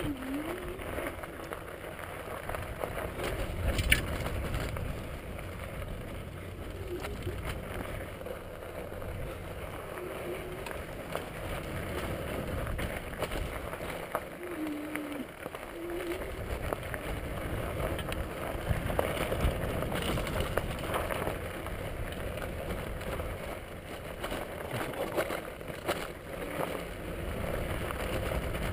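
Bicycle tyres rolling and crunching over loose gravel, with scattered clicks and knocks from the bike over the bumps and a steady low rumble of wind on the microphone.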